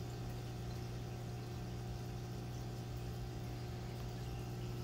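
Aquarium air pump and bubbling air stone running: a steady low hum under a soft, even hiss of water.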